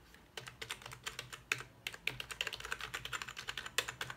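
Fast typing on a budget Samini K13 USB keyboard: a quick, dense run of key clicks that starts about half a second in and stops near the end.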